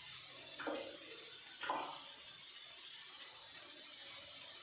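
Shih tzu puppy giving two short yaps about a second apart, over a steady high hiss.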